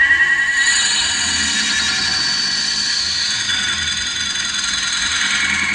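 Steady, high warbling electronic tones, several pitches sounding together and held throughout, with a slight flutter in each.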